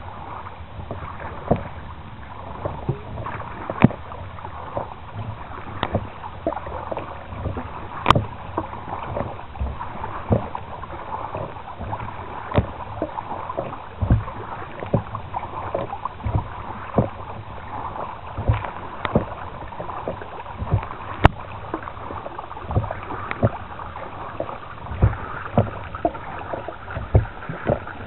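Kayak being paddled across calm water: steady splashing and dripping from the paddle blades and water washing along the hull, with many small sharp clicks and splashes at irregular intervals.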